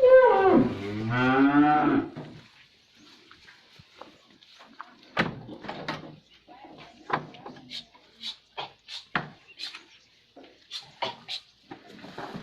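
Dairy cow mooing: one long call of about two seconds, then scattered short rustles and knocks.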